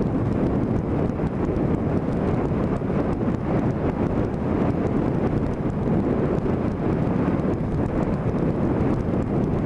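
Wind rushing over the camera microphone on a moving vehicle, mixed with steady road and engine noise at cruising speed.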